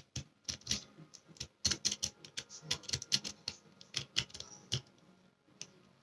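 Pick rake scraping in and out of a cheap brass euro profile cylinder lock, a quick irregular run of metallic clicks as it rattles over the pin tumblers. The clicking thins out and stops about five seconds in.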